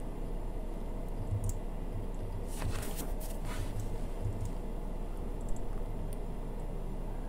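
Quiet room tone with a low hum and a few faint, short clicks near the middle.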